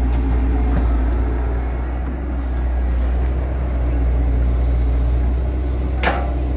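Caterpillar hydraulic excavator's diesel engine running steadily under load while digging, with one sharp knock about six seconds in.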